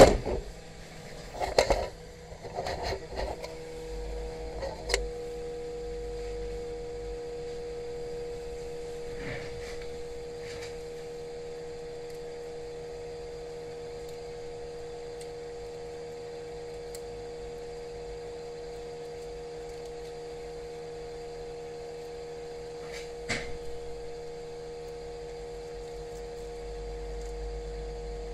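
A few sharp clicks and knocks of handling, then a steady electric hum sets in about three and a half seconds in and holds, with another short run of clicks near the end.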